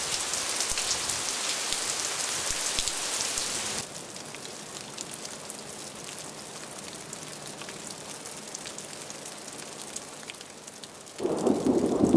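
Heavy rain falling on a grassy meadow, a dense hiss full of fine drop ticks; a little under four seconds in it drops suddenly to a lighter, quieter rain. Near the end a loud low rumble of thunder begins.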